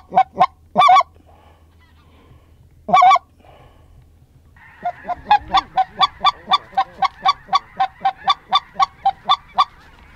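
Goose call blown by mouth: a few short honks, a single honk about three seconds in, then a fast, even run of about twenty short honks at about four a second, calling to a single goose coming back to the decoys.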